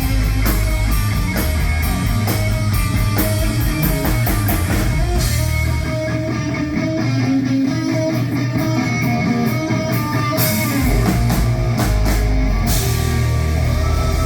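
Rock band playing an instrumental passage: electric guitar over bass and drums. The drums and low end drop back for a few seconds in the middle, leaving the guitar more exposed, and the full band comes back in at about ten seconds.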